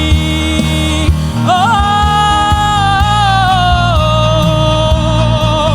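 Worship band music, with a singer holding one long 'oh' that starts about a second in and wavers near the end.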